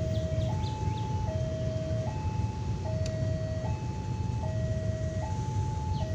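Railway level-crossing warning alarm sounding a steady two-tone hi-lo signal, switching pitch about every 0.8 s to warn that a train is approaching, over a low rumble.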